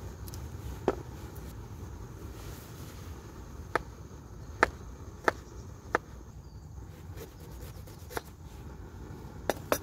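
Kitchen knife knocking down onto a wooden cutting board as garlic and then ginger are sliced: about nine sharp, irregularly spaced knocks over a steady low background rumble.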